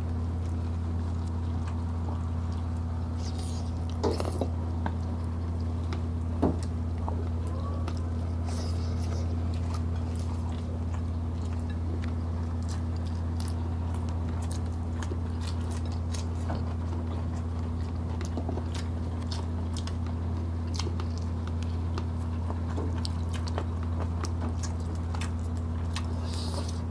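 Close-up eating sounds of grilled chicken and rice eaten by hand: chewing, biting and small wet clicks, with a few sharper clicks about four and six seconds in. A steady low hum runs underneath.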